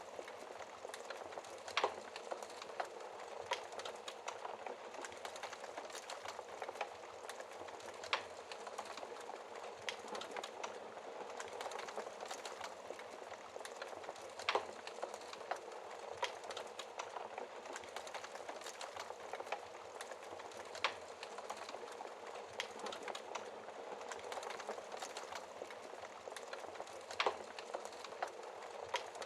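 Wood fire burning in a fireplace: a steady crackling hiss with many small snaps and a louder pop every few seconds.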